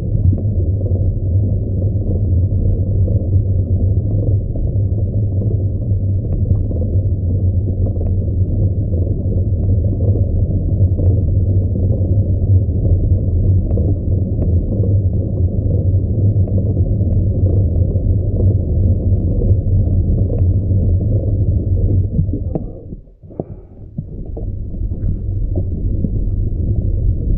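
Steady, muffled low rumble of wind buffeting the microphone while riding a bicycle. It drops away briefly near the end, then comes back, with a few faint clicks over it.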